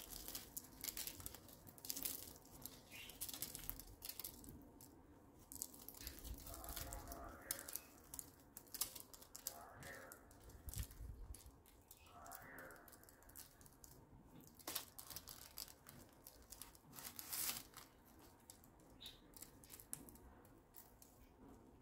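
Freshly baked, layered açma rolls torn apart by hand: the crisp, flaky crust gives faint, irregular crackles as the layers separate and flakes drop onto the baking paper.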